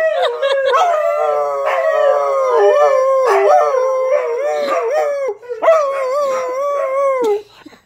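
Greyhounds rooing: a long, wavering, howl-like call that keeps sliding down in pitch and swelling again, with a short break about five seconds in.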